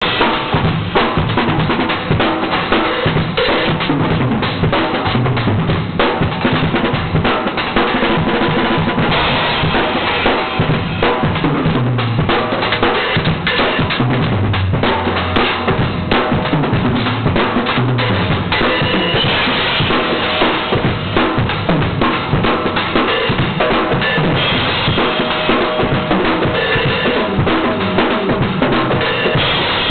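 Drum solo on an acoustic drum kit with Sabian AAX cymbals: a dense, continuous stream of snare, bass drum and tom strokes mixed with cymbal hits. Several tom fills step down in pitch across the toms.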